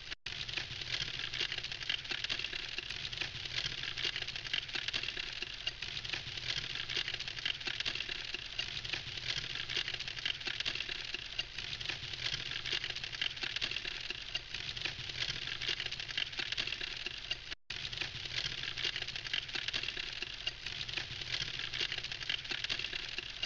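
Wood campfire crackling steadily, a dense run of small sharp crackles from the burning logs, with two momentary dropouts in the sound, just after the start and about 17 seconds in.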